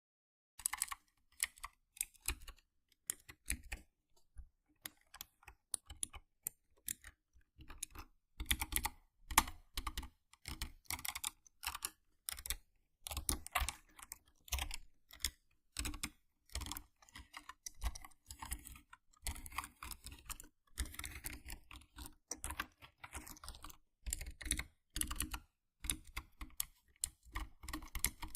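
Mechanical keyboard keys being typed on, making crisp irregular clicks in quick clusters with brief pauses, for ASMR.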